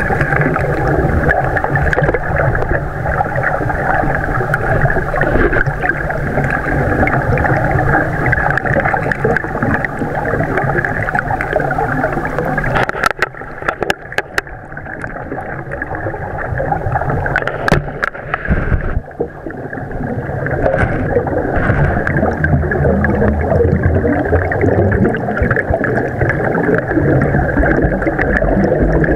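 Steady rushing and gurgling water noise picked up underwater by the camera. The noise quietens for a few seconds around the middle, where a few sharp clicks are heard.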